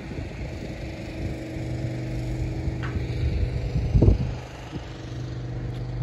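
An engine running steadily nearby, a low hum that swells after about a second and fades after about four seconds. Wind buffets the microphone, loudest in one gust about four seconds in.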